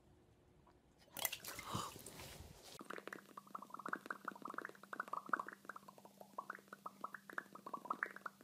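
A short noisy burst, then a quick, irregular run of wet clicking and smacking mouth noises made with the hands cupped at the lips, their pitch wandering up and down. The sound is faint throughout.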